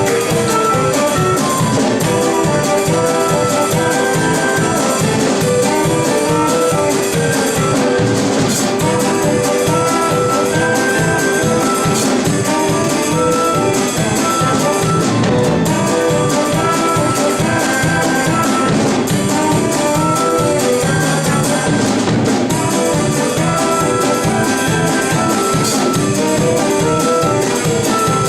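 Jazzy band music led by brass, trumpets and trombones, from a musical's stage orchestra.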